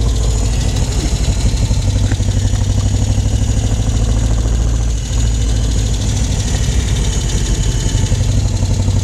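Engine of the vehicle carrying the camera, running steadily at low speed on a snowy road: a low, evenly pulsing drone that dips briefly about five seconds in.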